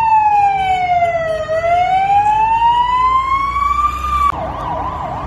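Emergency vehicle siren in a slow wail, its pitch falling and then rising again. About four seconds in it switches abruptly to a fast yelp of rapid up-and-down sweeps.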